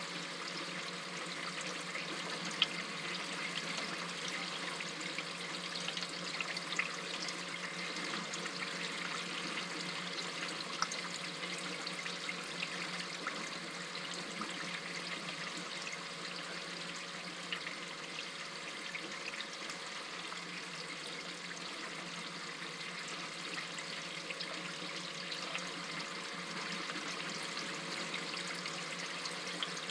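Water trickling and splashing steadily in an aquarium sump, with scattered small ticks and a steady low hum underneath.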